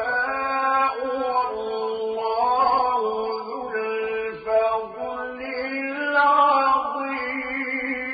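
A solo male voice reciting the Quran in the melodic mujawwad style, drawing out long ornamented notes that waver and glide in pitch, with a short break for breath about four and a half seconds in.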